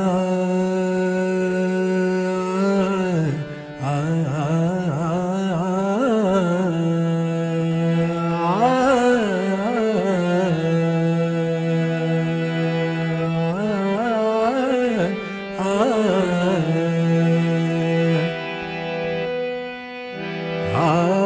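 A man singing long held notes with wavering melismatic ornaments over a steady drone, in South Asian or Middle Eastern devotional style. There are short breaks in the line about three and a half seconds in and near the end.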